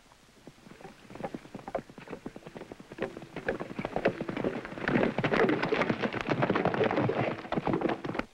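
Hoofbeats of two horses galloping over sandy, rocky ground, a dense irregular clatter that grows louder as they come near and cuts off suddenly at the end.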